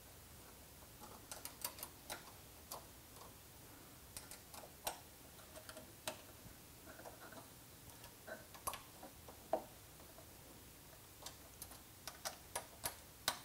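Faint, irregular metallic clicks and taps of an Allen wrench tightening set screws in the metal pole brackets of a Pilates trapeze canopy frame, with a few clustered clicks near the end. The screws are being brought just snug, not over-tightened.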